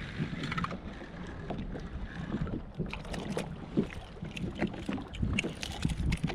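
Small waves slapping and lapping against the plastic hull of a sit-on-top fishing kayak, with scattered light knocks and clicks as fishing gear is handled aboard.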